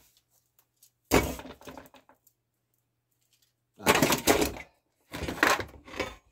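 Handling noise: a sharp knock about a second in, then two longer bursts of crackling and rustling a few seconds later, as parts and the phone are moved around close to the microphone.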